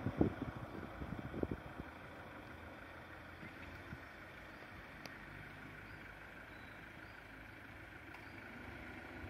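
Steady engine hum, like a motor vehicle idling, with a handful of knocks in the first two seconds.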